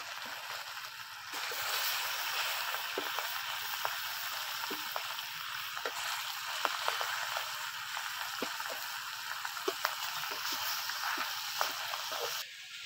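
Pomfret pieces frying in hot oil in a kadai: a steady sizzle dotted with frequent small pops and crackles, getting louder about a second in.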